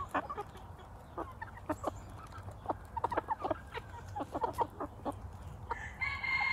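Flock of gamefowl chickens clucking in short, scattered clucks as they forage, with one longer, steady call near the end.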